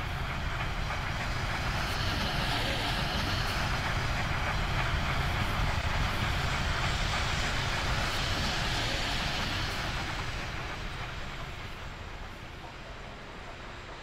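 A train rolling past with wheels clattering on the rails. The sound is loudest through the middle and fades away over the last few seconds.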